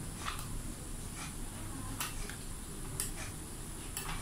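Light plastic clicks, roughly one a second, as a toy drone's remote controller is handled and unfolded.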